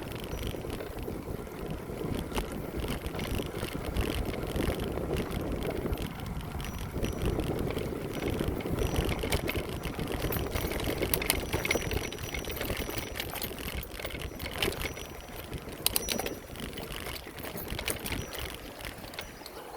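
Bicycle ride heard from the rider's own microphone: wind buffeting the mic and tyre rumble on the path, with a few sharp clicks or rattles late on.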